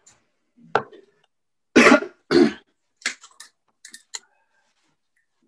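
A person coughs twice, sharply and close together, about two seconds in. A few light clicks follow as the darts are pulled out of a bristle dartboard.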